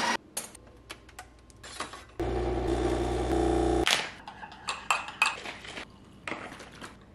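An espresso machine runs with a steady motor hum for under two seconds, starting about two seconds in. Then come light clicks and knocks of a mug, bag and carton being handled on the kitchen counter.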